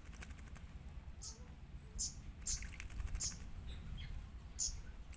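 Oriental magpie-robin (kacer) giving short, sharp high chirps, four of them spread a second or so apart, with a quick run of faint ticks near the start.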